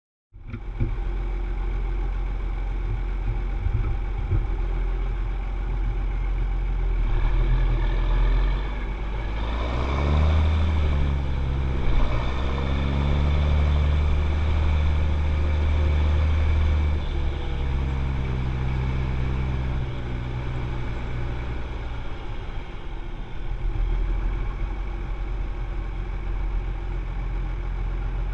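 John Deere 7710 tractor's diesel engine running. The engine note rises about a third of the way in, holds higher for several seconds, then drops back to a steady idle.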